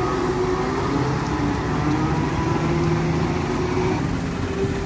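Diesel engine of a heavily loaded timber lorry running as it pulls slowly past, a steady drone.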